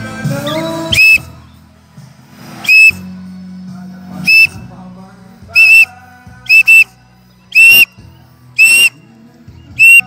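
Short, loud blasts of a whistle at one high pitch, repeated about nine times at uneven intervals, two of them in quick succession around the middle; a recall whistle calling a free-flying cockatiel back.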